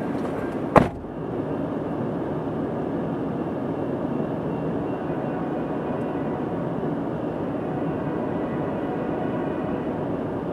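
Steady low rumble of an approaching diesel freight train still out of sight, with one sharp knock about a second in.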